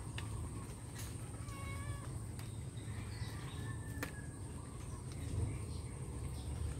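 A few short, faint animal calls, each about half a second long, over a low steady rumble.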